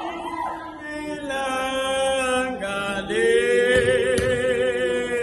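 Slow hymn singing: voices holding long, drawn-out notes with a slight wavering, a man's voice among them.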